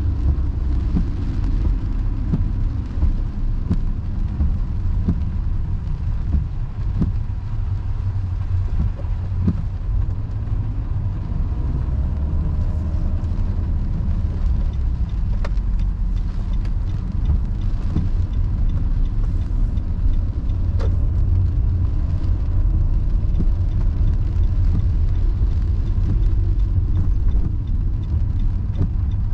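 Car cabin noise while driving on a wet road in the rain: a steady low rumble of tyres and engine, with a few light clicks scattered through it.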